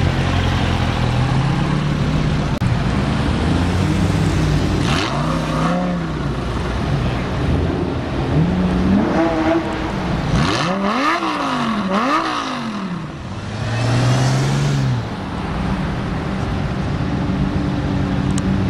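Engines of supercars rolling past at low speed, among them a Bentley Continental GT, a McLaren and a Lamborghini Murciélago. The revs rise and fall, with a quick run of sharp throttle blips about halfway through.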